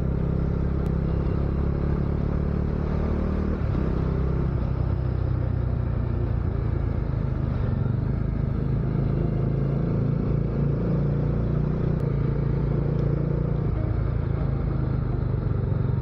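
Motorcycle engine running steadily while riding on the road, its pitch shifting slightly a few seconds in and again past the middle.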